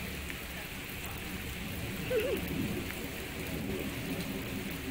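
Steady rain falling, an even hiss with a few faint drip ticks. About two seconds in there is a short, wavering low voice-like call.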